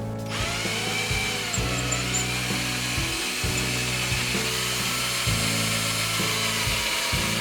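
Power drill with a number 4 bit boring a hole into a wall for a wall anchor, running steadily and stopping right at the end, with background music underneath.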